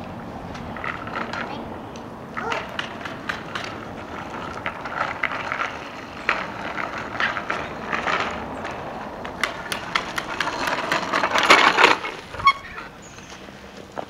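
Children at play: brief bits of children's voices among scattered clicks and knocks, with a louder rush of noise about eleven seconds in.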